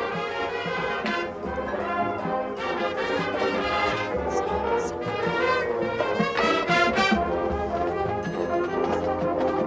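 Marching band playing, with the brass (trombones and trumpets) carrying the melody over percussion.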